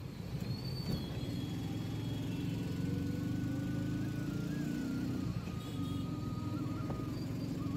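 Background music with slow, held melody notes over a steady low drone, mixed with the running of an auto-rickshaw's engine in traffic.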